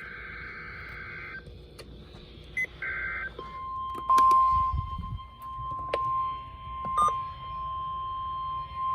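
NOAA Weather Radio test signal: a short buzzing, warbling data burst of the digital alert header, then about three and a half seconds in the steady single-pitch 1050 Hz warning alarm tone begins and holds, the tone that switches on weather-alert receivers. Scattered clicks of radio static sit under it.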